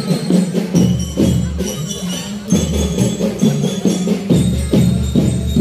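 A marching drum band playing: a steady beat of drums and low bass-drum notes, with high, bell-like notes ringing over it.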